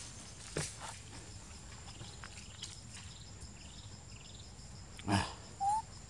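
Long-tailed macaques feeding: a short harsh grunt-like sound about five seconds in, followed at once by a brief rising squeak, over faint insect-like chirping.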